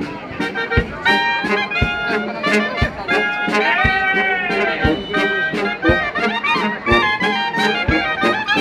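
Band music: wind instruments play a melody over a steady low drum beat of about one stroke a second.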